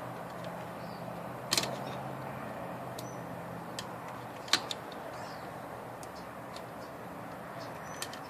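Sharp metallic clicks and taps of small tools and parts being worked on an IBM Selectric typewriter's mechanism, a scattered handful, with the loudest a double click about a second and a half in and another about four and a half seconds in, over a steady low hum.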